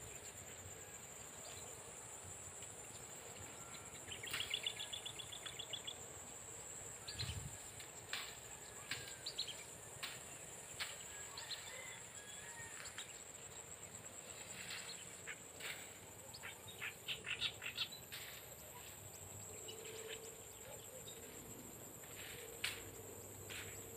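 Faint outdoor ambience: a steady high insect drone, with a quick run of repeated bird chirps about four seconds in and scattered sharp clicks and rustles.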